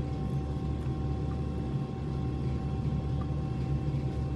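Steady low hum of background noise with a faint high whine on top, and no distinct handling sounds.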